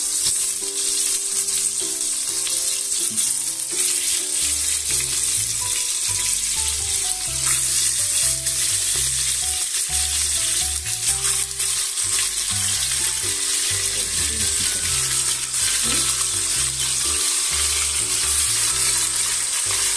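Lamb neck pieces sizzling steadily as they are laid into hot oil in a stainless-steel pot and begin to sear, with background music underneath.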